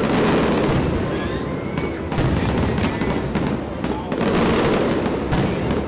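Aerial firework shells bursting in quick succession: booms followed by dense crackling. The loudest bursts come at the start, about two seconds in, and about four seconds in.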